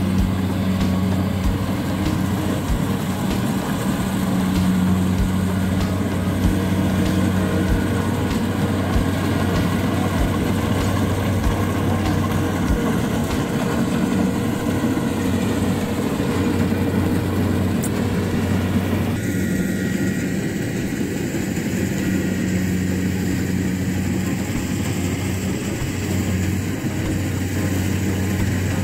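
Kubota combine harvester's diesel engine running steadily as it harvests rice, a continuous low drone. About two-thirds of the way through the higher sounds change abruptly while the drone carries on.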